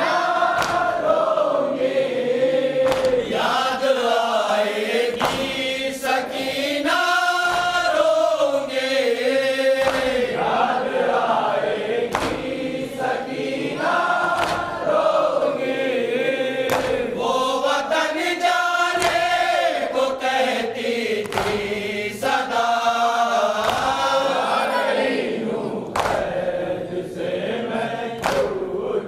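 A group of men chanting a Shia noha (lament) in long, rising and falling sung phrases, led by one reciter at a microphone. Sharp slaps of hands beating on chests (matam) recur through the chant.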